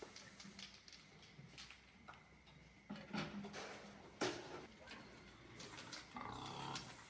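Pigs grunting amid scattered knocks and scuffling, with one sharp knock about four seconds in.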